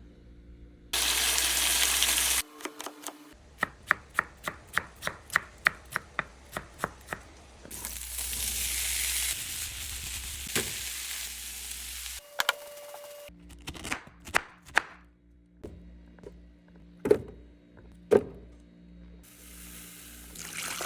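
Kitchen sounds in quick cuts: food sizzling in a hot pan in several stretches, a run of about a dozen evenly spaced knife chops on a cutting board, and scattered knocks and clatters, with a short steady tone about halfway through.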